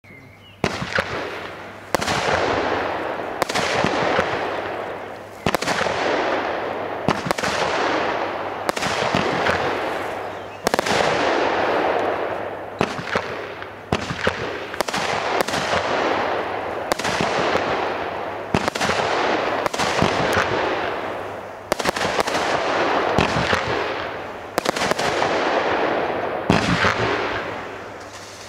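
Weco Apocalypse consumer firework battery (category 2) firing shot after shot, about one every one and a half to two seconds. Each shot is a sharp bang followed by a crackling hiss that fades away before the next.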